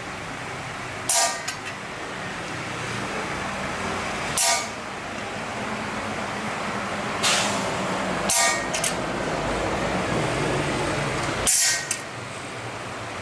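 Hammer striking a steel punch against a steel blade clamped in a vise: five sharp metallic blows, a few seconds apart and irregularly spaced, each with a brief ring. A steady mechanical hum runs underneath.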